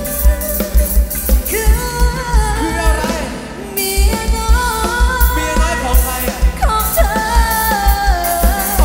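Live Thai ramwong band music played loud through a stage PA: a singer's melody over a steady drum beat. The drums drop out for about a second midway, then come back in.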